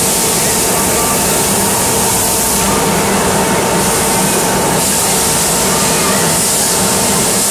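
Swing ride's drive machinery running steadily: a constant mechanical hum under an even rushing noise as the ride turns.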